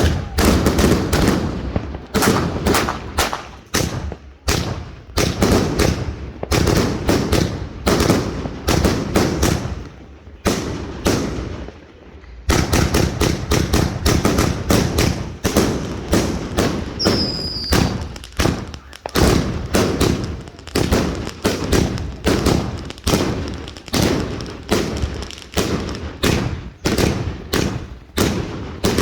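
A Summer Jam consumer firework firing a long run of sharp bangs and bursts, about two a second, with a short pause about twelve seconds in.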